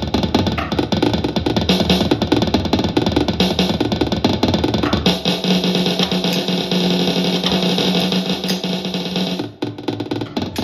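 Electronic drum kit played with rapid, dense strokes. About halfway through, a steady held tone joins the drumming; it cuts out shortly before the end, where the playing dips briefly and then picks up again.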